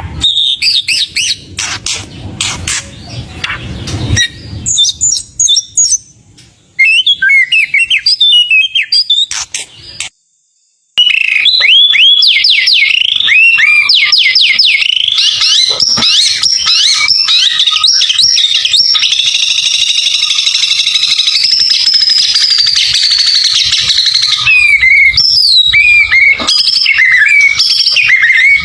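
White-rumped shama singing loudly: a fast, varied run of whistled phrases, chirps and trills, full of imitated calls. The song cuts out completely for about a second, roughly ten seconds in, then resumes without a break.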